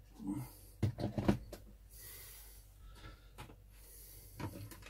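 A plug being pushed into its socket and cables handled: a few sharp clicks and knocks about a second in, then fainter fumbling clicks and a small cluster of knocks near the end.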